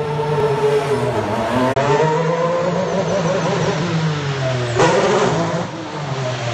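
2017 Formula 1 cars' turbocharged V6 hybrid engines running at low revs along the pit lane, the engine note dipping and rising as cars pass. The sound changes abruptly twice, about two seconds in and near five seconds in.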